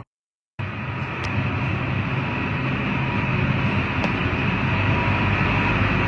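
A large engine running steadily, with a brief dropout at the start.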